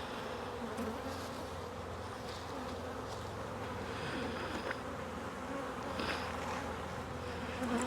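Honeybees buzzing around a hive in a steady hum, the stragglers left outside after a nuc has been moved in.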